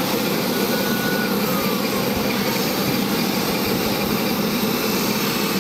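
Aircraft engines running with a steady, loud drone, with a constant low hum under a broad rush.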